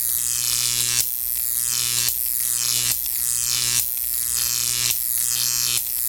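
High-voltage electrical buzz: a steady hum with a hissing crackle above it, which surges afresh about once a second and sinks in pitch after each surge.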